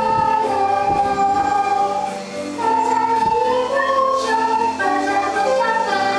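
Children playing a melody in held notes on plastic recorders, with a girl singing along into a microphone; the music breaks off briefly a little past two seconds in.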